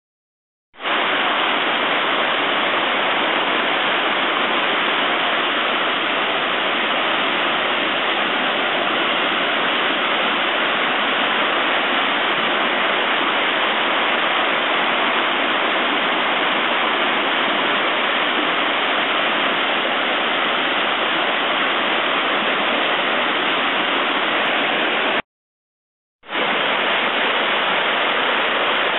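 Flooded creek rushing through whitewater rapids: a steady, loud rush of fast water. It drops out for about a second near the end.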